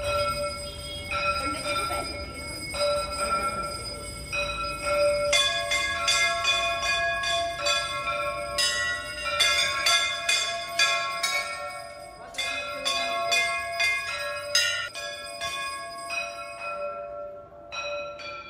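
Brass temple bells struck repeatedly by worshippers, their clangs overlapping and ringing on. The strikes come thick and fast, several a second, through the middle of the stretch, and thin out near the end.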